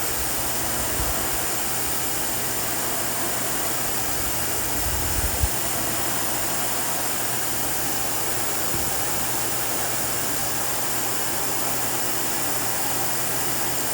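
Vacuum cleaner running steadily on a sidewalk, a constant whooshing motor noise with a low hum, with a couple of low bumps about five seconds in.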